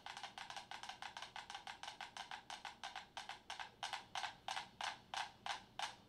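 Five mechanical metronomes ticking on a shared board resting on rolling cans. The clicks start out crowded and uneven and settle toward one even beat of about three ticks a second as the metronomes fall into sync through the moving board.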